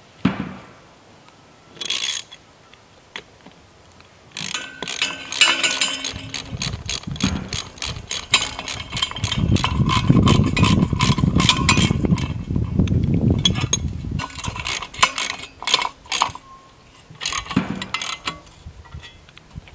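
Socket ratchet wrench clicking rapidly in runs as a bolt is tightened down through a galvanized steel post base into a concrete slab, with short pauses between runs.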